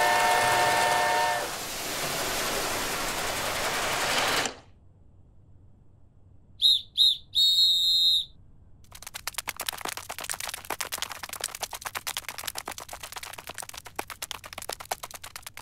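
A toy train running along its track with a whistle sounding at first, cutting off suddenly about four and a half seconds in. Then come three short high squeaks, followed by a long run of rapid, irregular ticking clicks.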